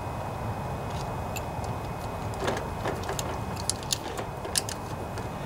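Scattered light metallic clicks of a ratchet wrench working the nut on a riding mower's starter motor power terminal, beginning about halfway through, over a steady low background rumble.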